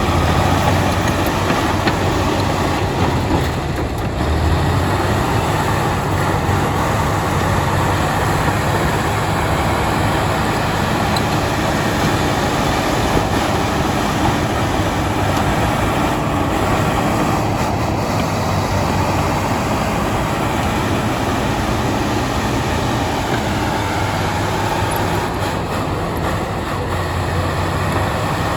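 Crawler bulldozer at work: its diesel engine running steadily under load over a dense clatter of steel tracks and stone.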